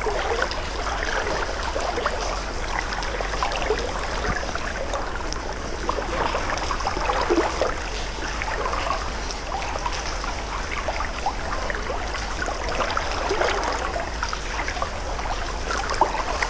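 Creek water running and burbling close by: a steady wash with constant small gurgles and flickers.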